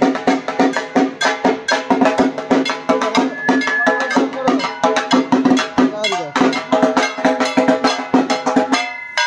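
Fast, steady puja percussion: rapid drum strokes with ringing metal strikes over them. It stops suddenly near the end.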